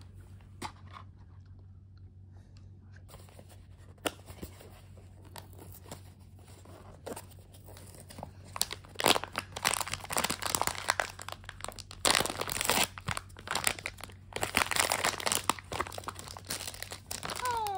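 Quiet room tone with a few faint clicks, then from about eight seconds in, dense irregular crinkling and crunching with loud spikes.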